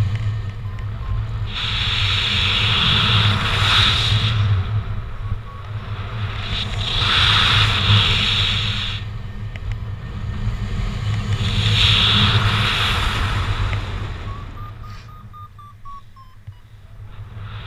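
Wind rushing over the microphone in paraglider flight, with a steady low rumble. A hissing layer surges and eases every four seconds or so, and the sound drops lowest near the end.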